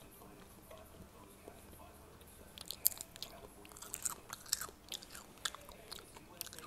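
A person eating a Korean fried chicken wing: chewing, biting and smacking, heard as quick sharp clicks and crackles that start about two and a half seconds in.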